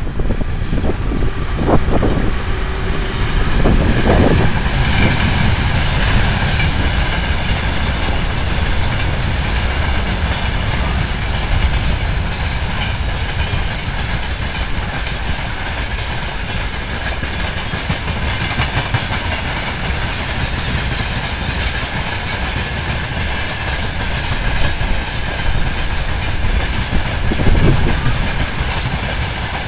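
VL11M electric locomotives and a long freight train passing close by: a steady, loud rolling rumble of wagons with a high whine underneath, louder in the first few seconds as the locomotives go past, and wheels clacking over rail joints near the end.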